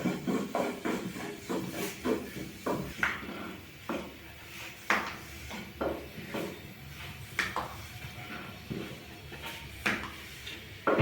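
Scattered light knocks and taps of kitchen work, cookware and utensils being handled, over a low steady hiss.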